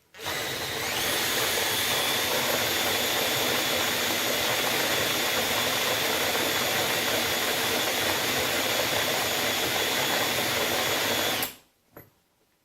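Cordless drill spinning a Hario hand coffee grinder's conical burrs through a socket, grinding coffee beans: the motor whine climbs to speed in the first second, holds steady for about eleven seconds, then stops suddenly.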